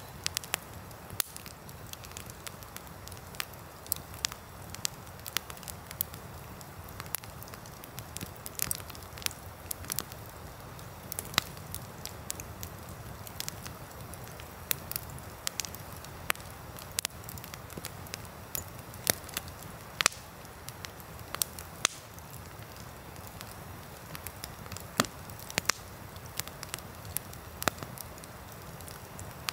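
Wood campfire burning, crackling with sharp, irregular pops, several a second, a few much louder than the rest, over a steady low rush.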